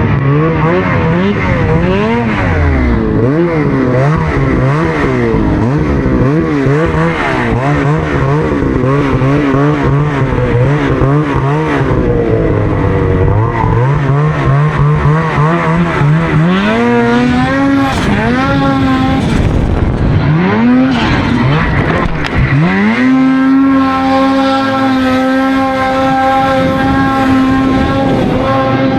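Snowmobile engine revving up and down as the sled is ridden. It gives a few sharp rises about two-thirds in, then holds at a steady high pitch near the end.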